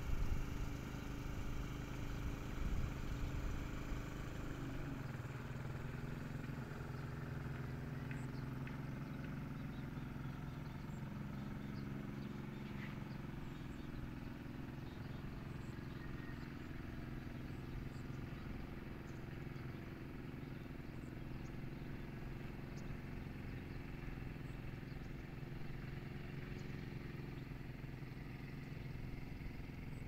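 An engine runs steadily with a low hum, its pitch dropping about four to five seconds in, with faint short chirps above it.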